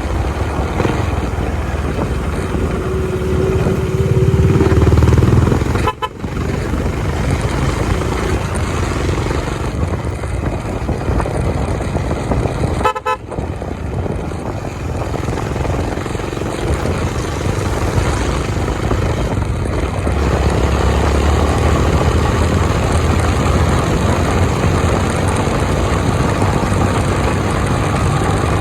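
Honda CB350 motorcycle riding at highway speed: steady engine and wind noise, with two short dips about six and thirteen seconds in, and heavier, louder engine sound in the last third.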